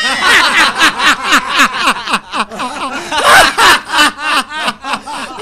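Men laughing loudly together, a fast run of ha-ha-ha pulses, about four or five a second.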